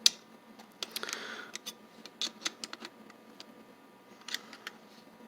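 Metal parts of an antique Russwin mortise lock clicking and clinking as they are handled and taken out: a sharp click at the start, then scattered lighter clicks.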